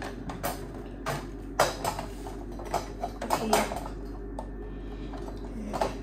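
Washing machine running with a steady low hum while the load knocks and clatters irregularly against the drum: a quick run of sharp knocks over the first four seconds, then one more near the end.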